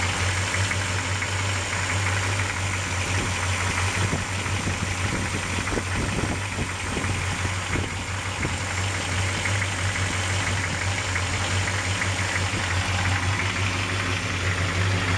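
1960 Chrysler Saratoga V8 idling steadily, warmed up.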